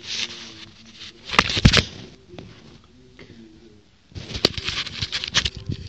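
Rubbing, scuffing and tapping right against a phone's microphone as the phone is jostled close up against a cat. It comes in two bursts, about a second in and again from about four seconds, with a quieter stretch between.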